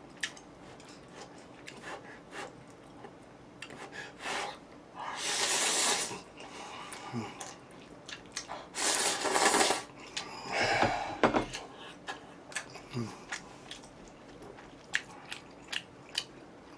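A person eating jjajang instant noodles close to the microphone: two loud slurps of noodles, about five and nine seconds in, between quieter chewing and light clicks of utensils against the bowl.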